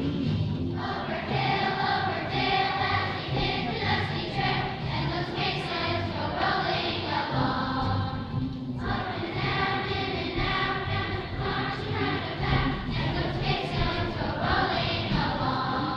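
Children's choir singing together, the sung phrases broken by short pauses about half a second and eight and a half seconds in.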